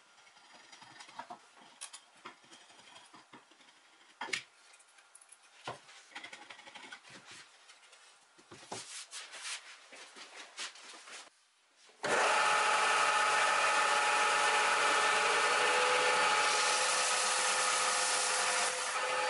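Faint scrapes and ticks of a blade shaving a wooden chair part by hand. About twelve seconds in, a combination belt and disc sander comes in loud and steady, and a wooden piece is sanded on the moving belt.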